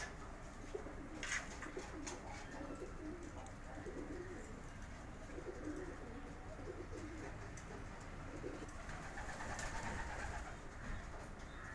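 Racing homer pigeons cooing, a run of low warbling coos that goes on through most of the stretch, with a sharp click about a second in.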